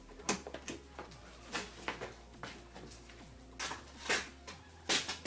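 A handful of sharp, irregular clicks and knocks from hands working the window glass and regulator parts inside a van door, as the glass is lowered into the regulator's holding clamps.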